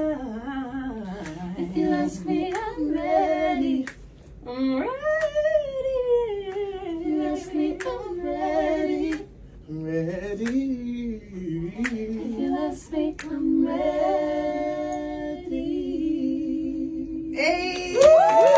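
A small group of singers harmonising a cappella in a small room, several voices holding chords together, with scattered sharp clicks. Near the end a louder, higher voice comes in on a long note with vibrato.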